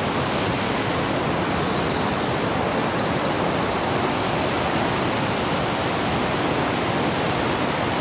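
Mountain river rushing: a steady, even rush of flowing water with no breaks.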